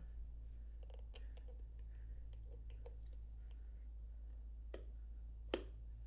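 Scattered small clicks and taps as a solid honeycomb tire is worked over the lip of an e-scooter wheel rim, with one sharper click near the end, over a steady low hum.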